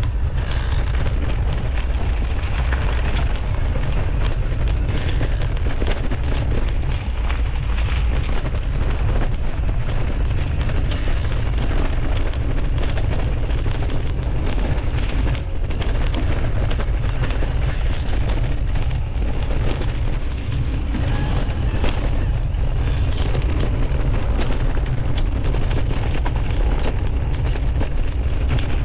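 Mountain bike being ridden along a rough trail, heard through a bike- or body-mounted GoPro: a constant low rumble of wind buffeting and tyre noise, with scattered rattles and clicks from the bike.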